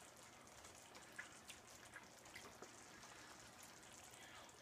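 Near silence, with faint scattered pops from the bisque simmering in the pan.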